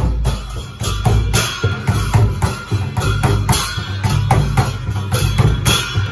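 Double-headed barrel drum and brass hand cymbals played by a small group of walking musicians: a steady beat of drum strokes with cymbal clashes, several a second.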